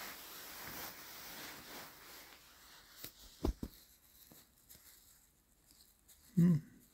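Quiet room with a few soft clicks and rustles, as of a phone being handled in bed, about three seconds in; a short hum from a voice near the end is the loudest sound.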